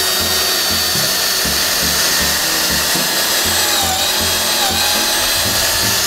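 Cordless drill running at speed, boring a pocket hole with a Kreg pocket-hole bit through a Kreg Jig Mini into a 3/4-inch drawer side: a steady whine over the noise of the bit cutting wood.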